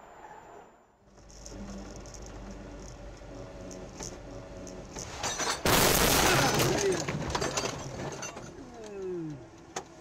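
Steady car cabin noise, then about six seconds in a loud crash with breaking glass as an oncoming SUV strikes the front of the car head-on. The crash lasts about a second and a half.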